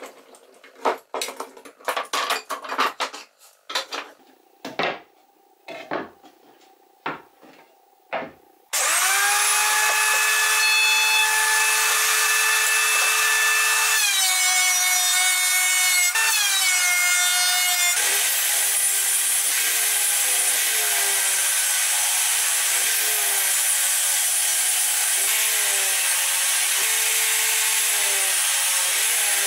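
Metal bar clamps clicking and knocking as they are loosened and lifted off glued-up pine panels. About nine seconds in, a benchtop thickness planer starts suddenly and runs loudly. Its pitch drops while a board feeds through, then dips briefly about once a second under repeated load.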